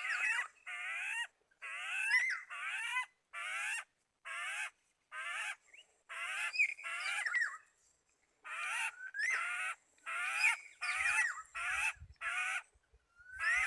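Bird-trapping lure call for black-naped orioles: short bursts of chattering, rising whistles repeat about twice a second, with a pause of about a second around the middle.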